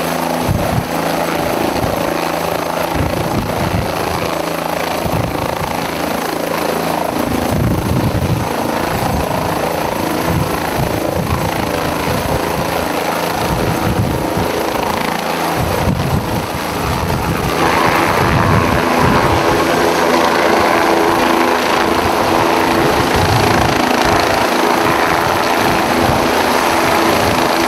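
Helicopter rotor and turbine running close by while hovering and lifting a slung load, with irregular low buffeting throughout. About two-thirds of the way through the sound turns brighter and slightly louder.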